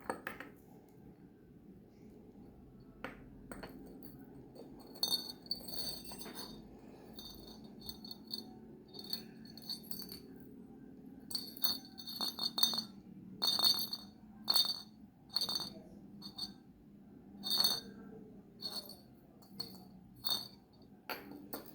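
Glass clinking: glass LED filament bulbs knocking and tinkling, an irregular series of short, high ringing clinks, busiest from about five seconds in.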